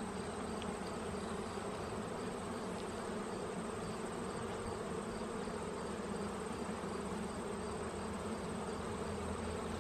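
A honeybee colony buzzing around an opened hive: a loud, steady, dense hum of many bees. The colony is stirred up by the hive inspection.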